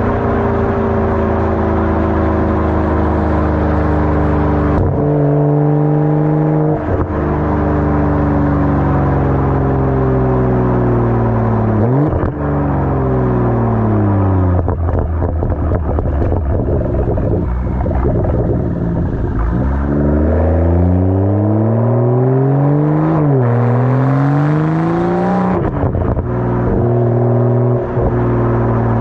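2023 BMW M240i xDrive's turbocharged 3.0-litre inline-six through a muffler-deleted exhaust with no resonator, in Sport Plus mode. The exhaust note sinks slowly as engine speed falls for much of the time. Then it climbs hard under acceleration, with a quick gear change partway up, and settles into a steady drone near the end.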